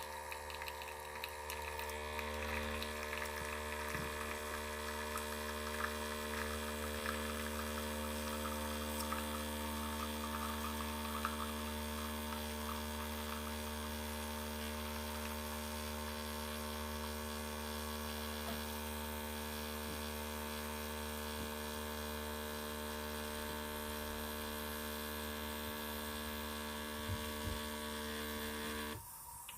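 Bosch Tassimo Suny pod coffee machine's water pump humming steadily as it brews a drink through the pod, with some crackling and trickling of liquid in the first half. The hum cuts off suddenly near the end as the brew finishes.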